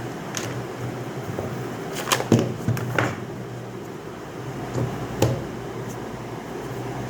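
A few sharp clicks and knocks of a phone's cardboard box and packaging being handled and opened, most of them close together about two to three seconds in and one more a little after five seconds. A steady fan hum runs underneath.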